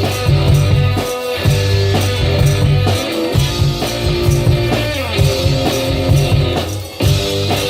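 One-man band playing live: strummed guitar over a low thumb-played bass line, with a steady drum beat played on foot pedals. The music drops away briefly about seven seconds in.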